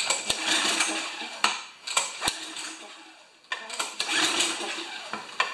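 Recoil starter of a Tecumseh vertical-shaft small engine pulled twice, the engine whirring over on each pull without firing. A few sharp clicks come between the pulls. The engine won't start even with fuel squirted into it.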